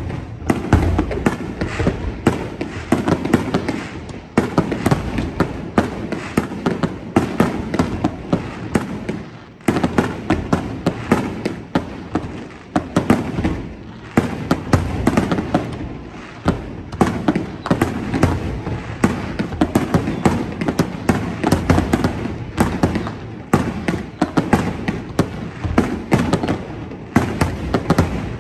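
Fireworks display: a dense, continuous barrage of bangs and crackling bursts, several a second, with brief lulls now and then.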